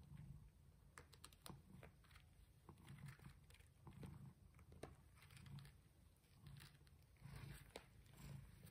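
Faint small wet clicks and rustles of newborn kittens suckling and squirming against the mother cat on a crinkly pad, over a soft low pulsing that comes back about once a second.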